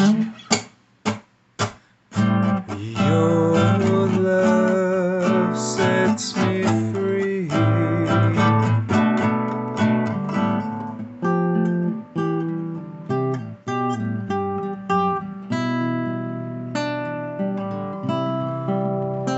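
Acoustic guitar strummed: a few sharp chord chops with short silences between them in the first two seconds, then steady chord strumming.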